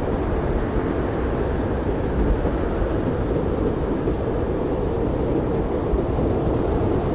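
Blizzard wind blowing steadily: a deep, even rush of noise with little high hiss.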